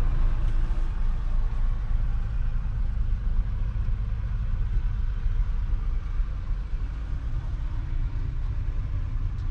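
Fendt 936 Vario's 9.0-litre six-cylinder diesel engine running steadily, heard from inside the tractor cab as it drives across the field: a continuous low engine drone with a faint steady whine above it.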